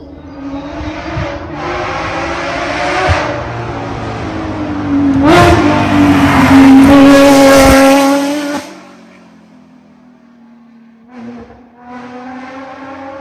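Rally car engine at high revs as the car comes up the stage and passes, loudest and steady for a few seconds before cutting off suddenly about eight and a half seconds in; a quieter engine note returns near the end.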